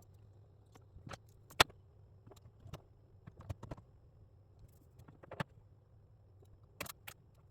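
Scattered light clicks and taps of small tools and parts being handled on a workbench during the circuit-board repair, with one sharper click about one and a half seconds in, over a faint low hum.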